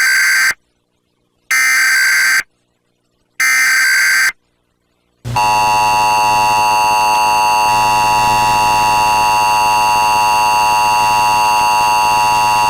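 Emergency Alert System broadcast tones. First come three short bursts of SAME header data, a harsh digital screech about a second each. Then the EAS two-tone attention signal starts about five seconds in and holds steady for about eight seconds.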